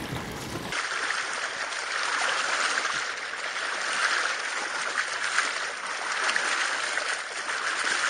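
Water rushing and splashing along the bow of a wooden Canoa do Tejo sailing boat as it cuts through the river, heard close to the waterline. A steady hiss with no engine, starting abruptly under a second in.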